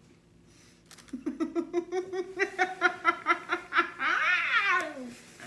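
A person laughing hard in quick rhythmic bursts starting about a second in, breaking into a high squealing laugh that rises and falls near the end.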